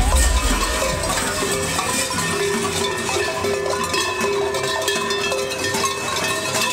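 Large Krampus costume bells, big metal cowbell-type bells worn on the back, clanging and ringing continuously as the figures walk and swing them.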